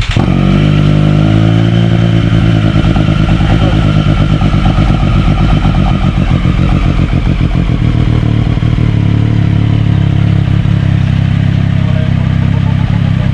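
Triumph Street Triple RS 765 cc inline-triple motorcycle engine running loud through a Zard slip-on exhaust with the dB killer and baffle removed. It comes in suddenly at the start, rises briefly in pitch, then runs steadily.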